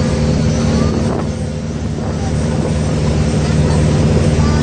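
Engine of a motorized outrigger ferry boat running steadily under way, a low even drone with water and wind noise over it.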